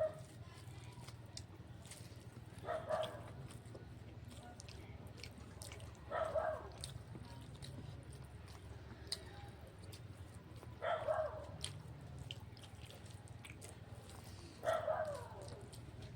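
A dog giving four short whining calls a few seconds apart, over small clicks and taps of eating.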